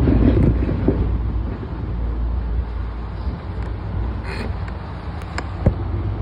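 Driver's cab of a standing electric train: a steady low hum from the train's onboard equipment, with a couple of sharp clicks near the end.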